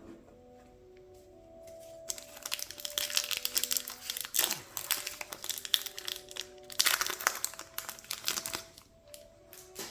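Foil wrapper of a trading-card booster pack crinkling and tearing as it is opened, in two bouts of about two seconds each, starting about two seconds in and about seven seconds in.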